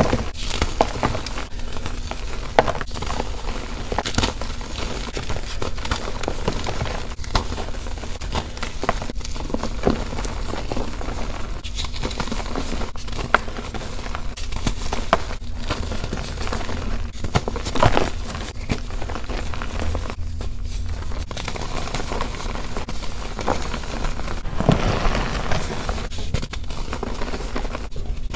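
Reformed gym chalk blocks crunching and crumbling as they are squeezed and crushed by hand: a dense, irregular run of crunches and crackles with a few sharper snaps, over a steady low hum.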